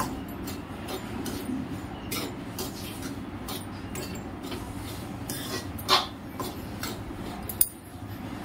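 Metal ladle scraping and knocking against a metal kadhai while stirring a dry, powdery sago-and-dry-fruit mixture in ghee, in a run of short strokes. There is a louder knock about six seconds in and a sharp clink near the end.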